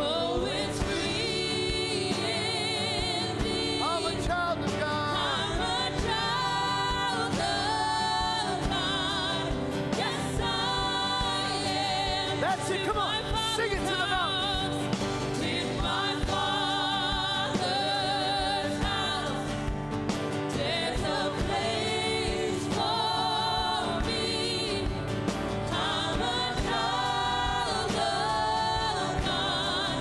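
Live gospel worship song: a woman's lead vocal with vibrato over strummed acoustic guitar, with other voices singing along.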